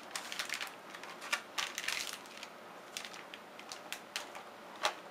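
Paper mold liner crinkling and rustling as it is peeled off a loaf of cold-process soap, with irregular light clicks and taps and a sharper knock near the end.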